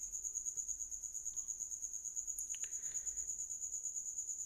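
A cricket chirping steadily: a high, thin, pulsing trill at about six pulses a second.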